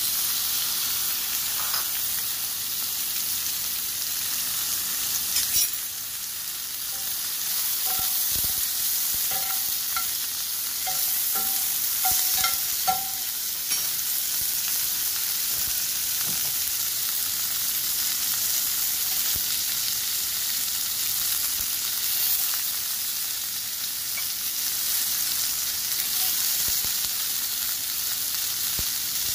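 Green beans and squash sizzling steadily in hot bacon fat and olive oil in a cast-iron skillet. A metal spatula stirs them, scraping and tapping against the pan now and then, mostly in the first half.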